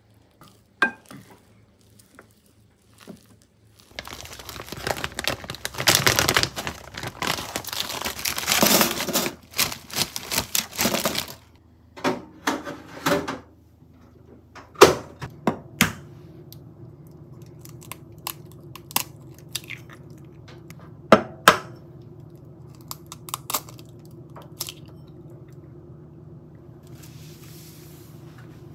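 Several seconds of loud crinkling and rustling of wrapping being handled, with sharp clicks. Then a steady low hum of an air fryer running starts, with a few sharp knocks of kitchen work over it and a soft cloth-wiping hiss near the end.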